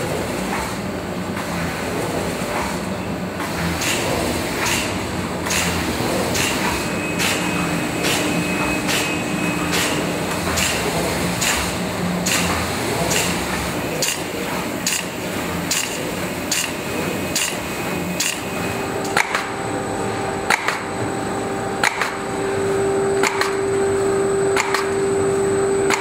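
Polythene bag-making and film-handling machinery running, with a regular clack about one and a half times a second over a steady mechanical hum. About two-thirds of the way through, a steady whine joins in.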